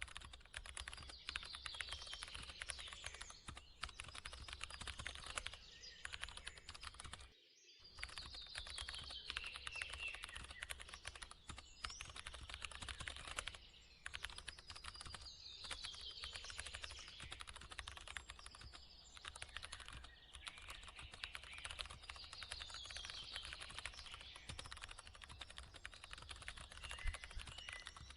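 Computer keyboard typing, a rapid continuous stream of keystrokes with a short break about a third of the way in, and a quiet falling chirp that comes back about every seven seconds.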